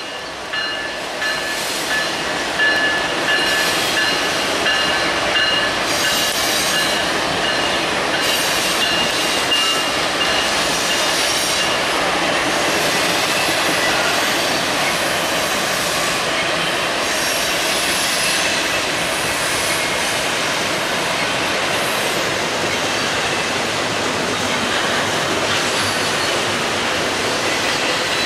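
BNSF freight train rolling past: locomotives, then double-stack intermodal container cars, a steady rush of wheel and rail noise. Thin high wheel squeal rings over it for about the first ten seconds, then fades.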